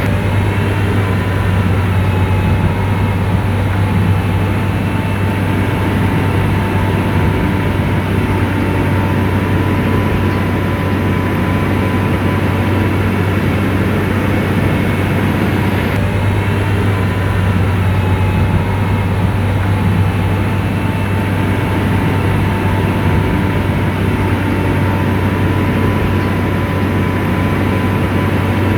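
Komatsu bulldozer's diesel engine running steadily: a deep, even drone with a faint wavering whine above it.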